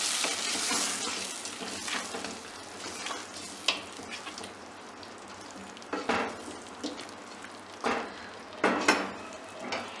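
Masala sizzling in a metal pot as a wooden spoon stirs brain pieces and ginger through it. The sizzle is loudest at the start and dies down, with a scrape of the spoon against the pot every second or two.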